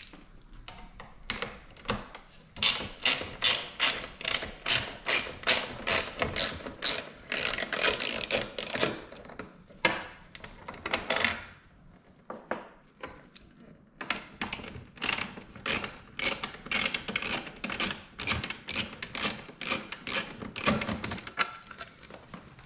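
Hand ratchet driver with a 30 Torx bit clicking steadily as it backs out the wickerbill's screws, about three clicks a second, in two long runs with a pause between them.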